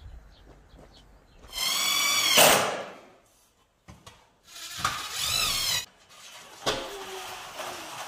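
Cordless drill-driver run in two short bursts of a high whine, the second one wavering in pitch as the trigger is eased. A sharp click follows near the end.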